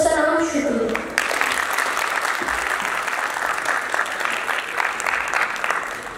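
A boy's voice finishing a phrase, then an audience clapping from about a second in, thinning out toward the end.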